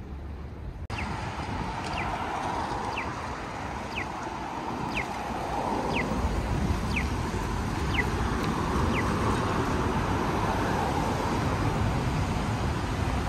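Audible pedestrian crossing signal chirping, a short falling electronic tone about once a second, which stops near the nine-second mark. Under it runs the steady noise of city traffic, growing louder about six seconds in.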